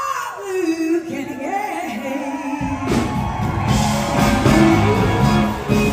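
Live blues-rock band: a woman sings a phrase over electric guitar, then about two and a half seconds in the bass and drums come in and the full band plays loudly.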